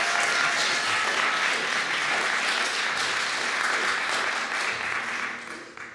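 Audience applauding steadily, the clapping dying away just before the end.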